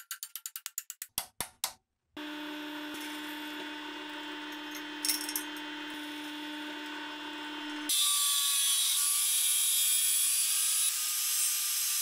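Workshop power tools during metalwork. A quick run of clicks slows and stops, then a power tool's motor runs steadily with a constant hum. About eight seconds in it gives way to a louder, steady hissing noise.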